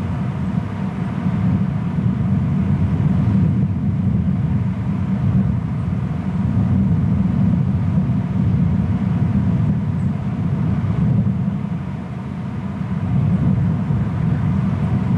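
Steady low rumble of wind buffeting an outdoor nest camera's microphone, swelling and easing slightly.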